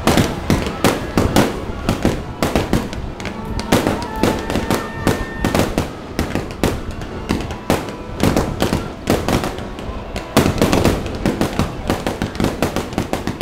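Aerial fireworks shells launching and bursting in quick succession, a dense string of sharp bangs, several a second, with no let-up.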